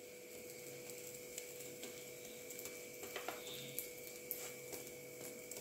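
Faint steady hum with a few light taps and clicks of a wooden spatula pressing a paratha on a nonstick tawa.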